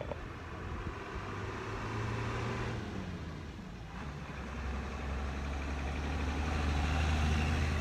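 A motor vehicle engine running close by, a low steady hum that grows louder in the second half, over general street noise.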